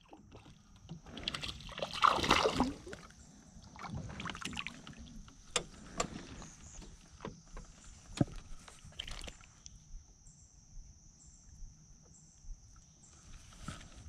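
A hooked bluegill bream splashing at the water's surface as it is reeled in, then scattered sharp knocks and taps as the fish is swung into the boat and handled. A steady high hiss runs underneath.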